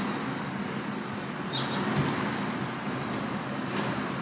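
Steady outdoor road-traffic noise: an even rumble of passing and idling vehicles, with one faint short high chirp about one and a half seconds in.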